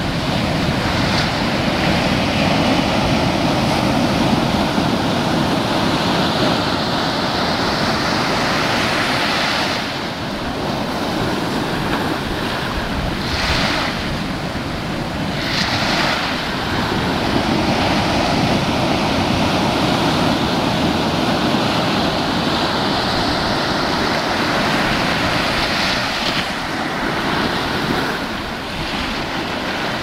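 Shallow surf churning and washing in and out over sand: a continuous rush of foamy water that swells louder a few times.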